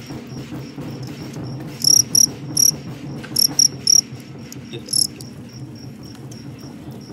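Male fighting crickets chirping: loud, short, high chirps in quick groups about two seconds in, again around three and a half to four seconds, and once near five seconds, over a fainter steady run of chirps. Under it all is a steady low hum.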